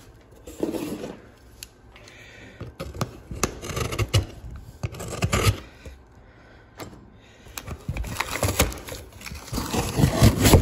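Cardboard boxes and packing tape being handled as a box is unpacked: irregular scraping and rustling with scattered knocks, pausing briefly midway.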